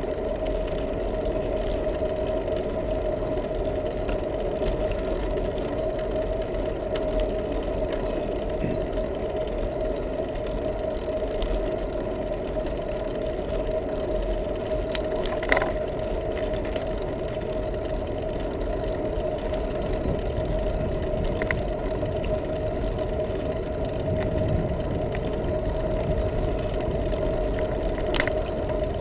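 Bicycle rolling along a paved path: steady tyre and wind noise with a constant hum, picked up by a GoPro mounted on the bike. A few sharp clicks or rattles from bumps, the loudest about halfway through.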